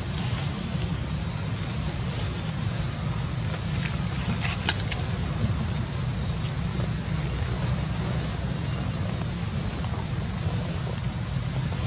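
Outdoor ambience: a steady low rumble under a high, shrill buzz that swells and fades in an even cycle a little over once a second, with a few faint clicks midway.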